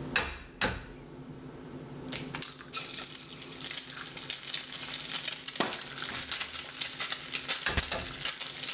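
Eggs knocked open on a frying pan, two sharp cracks in the first second, then the eggs sizzling and crackling in the hot pan, the sizzle growing louder, with a couple more knocks later on.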